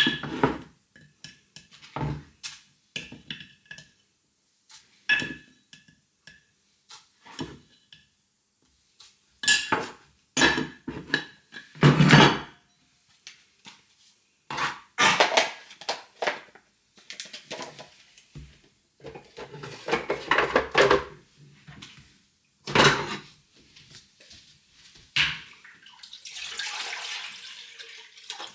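Clinks and knocks of ceramic and kitchenware on a countertop while filter coffee is made, some with a short ringing tone. Near the end, water is poured from a glass carafe into a drip coffee maker.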